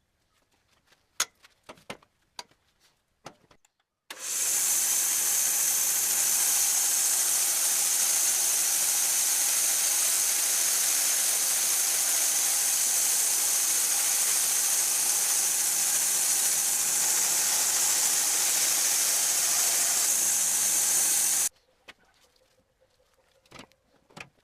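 Homemade machine running: a loud, even, high-pitched rushing noise that starts abruptly about four seconds in and cuts off suddenly about seventeen seconds later. Light clicks and knocks come before and after it.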